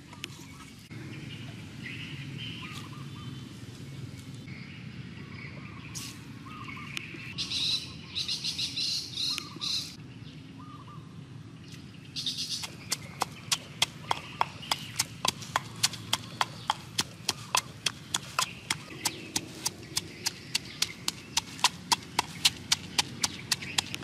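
Wooden pestle pounding chillies, herbs and salt in a wooden mortar. From about halfway through it makes a steady run of sharp wooden knocks, roughly three a second. Before that there are a few seconds of rustling.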